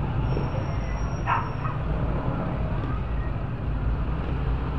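Steady roadside traffic rumble. A thin high whistle-like tone sounds for about a second and a half near the start, and a brief pitched sound comes about a second in.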